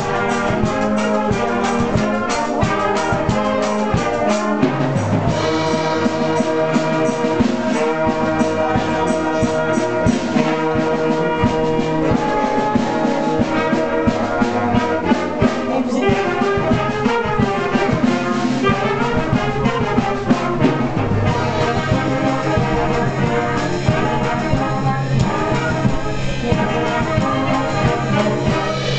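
Wind band playing live: clarinets, flutes, saxophones and brass together, over a steady beat.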